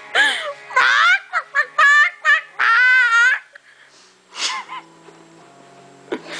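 A girl's high-pitched laughter and squealing, ending in a long wavering squeal about three seconds in. Then it goes quieter and faint music with steady held notes comes in near the end.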